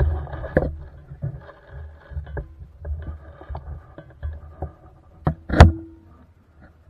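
Muffled rustling and handling noise from gear and rifle, with a string of irregular small knocks and clicks and one loud sharp knock about five and a half seconds in.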